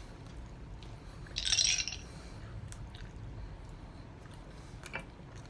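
Close-up eating sounds from a sauced chicken wing: a short, wet slurp about a second and a half in, then a small click near the end.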